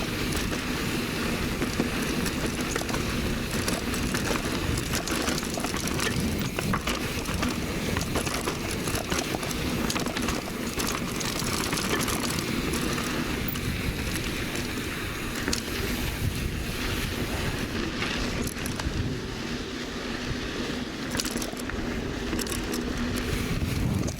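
Mountain bike riding fast down a dirt singletrack: a steady rushing noise of knobby tyres on dirt and wind, with small rattles and clicks from the bike throughout.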